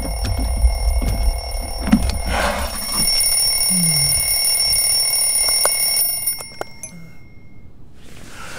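Alarm clock ringing steadily, cutting off suddenly about six seconds in.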